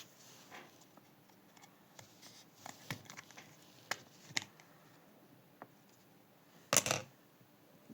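Small clicks and taps of a Nokia 1100's plastic parts being handled and fitted together, with a louder, brief scrape about seven seconds in.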